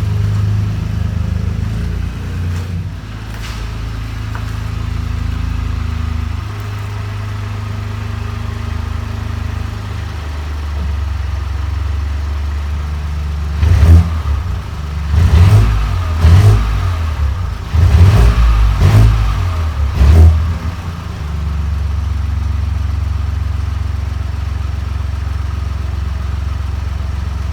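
BMW 218i Gran Coupe's 1.5-litre turbocharged three-cylinder engine idling, then revved in about six quick throttle blips in the middle, before settling back to a steady idle.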